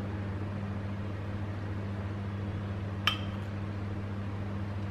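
A spoon clinks once against a bowl about three seconds in, a short ringing clink, over a steady low electrical hum.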